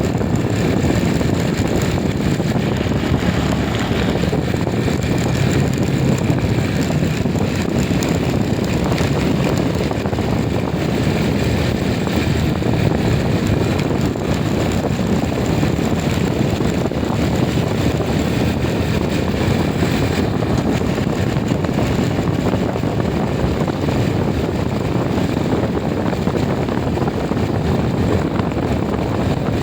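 Steady rumble of a moving vehicle with wind buffeting the microphone, even throughout with no break.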